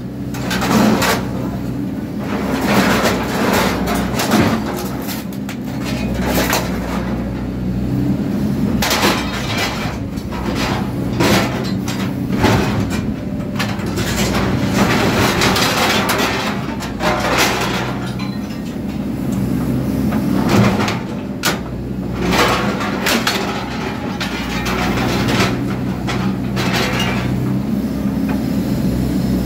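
Excavator's diesel engine running steadily while its hydraulic shear chops up metal roo bars, with irregular clanks, crunches and clattering of metal pieces.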